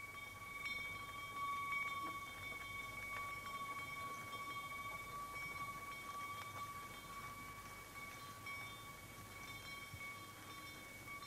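Faint sleigh bells on a horse-drawn sleigh, ringing in a steady tone with light scattered jingles.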